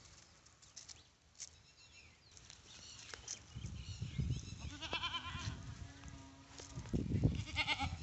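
Goats bleating: a short quavering bleat about five seconds in and another near the end, over a low rumbling noise.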